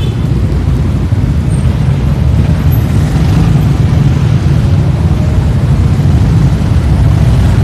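Road traffic at a busy intersection: a steady, loud low rumble of vehicle engines with no distinct events.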